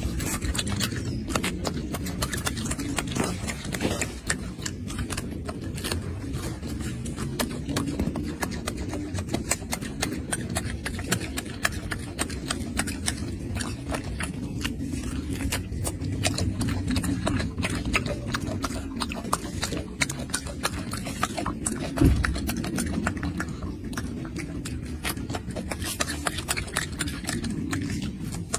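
Golden snub-nosed monkey eating a mandarin orange: dense, irregular wet clicking and smacking of chewing and peeling, over a steady low murmur, with one louder knock about 22 seconds in.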